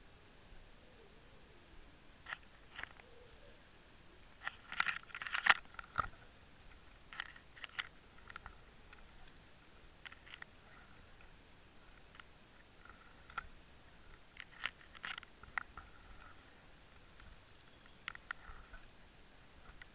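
Underwater clicks and crunches in small scattered clusters, loudest about five seconds in and again near fifteen seconds, over a faint steady hiss.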